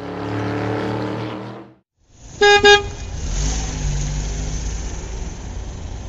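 Sound effects for toy street vehicles. A racing car's engine runs and fades away, and after a brief silence come two quick horn toots, then a van's engine rumbling steadily as it drives.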